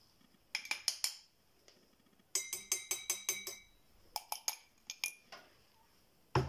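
A metal spoon clinking against a drinking glass in short groups of taps, with a quick run of about nine taps near the middle where the glass rings. A dull knock comes at the very end.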